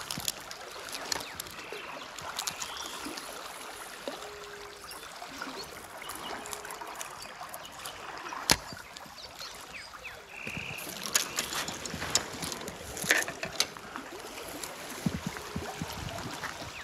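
Steady rush of a fast-flowing river, with scattered sharp clicks and taps from handling a fishing rod and baitcasting reel. The loudest click comes about halfway through, and more bunch together a few seconds later.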